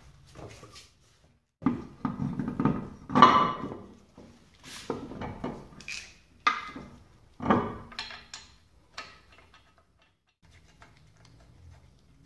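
An alloy car wheel being fitted onto the hub studs and its lug nuts run on by hand: a series of metallic clunks and clinks, the loudest about three seconds in, quieter near the end.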